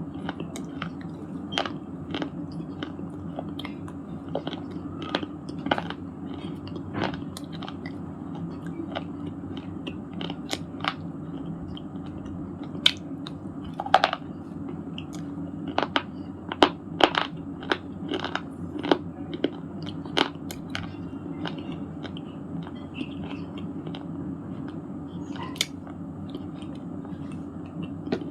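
Broken shale stone pieces being bitten and chewed: irregular sharp, brittle crunches, coming thickest around the middle, over a steady low hum.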